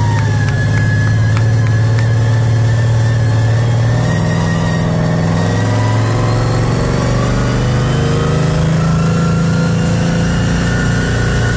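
Monster truck's engine running loud, heard from inside the passenger cabin, its pitch shifting down and up a few times as the truck drives.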